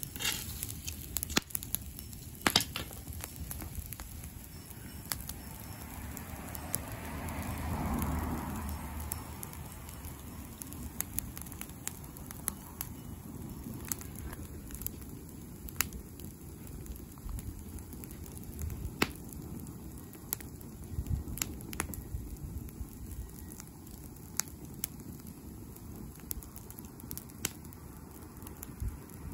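Brushwood bonfire of dry twigs and branches burning, with a low steady rush of flame and scattered sharp crackles and pops. The rush swells louder for a few seconds about a quarter of the way in.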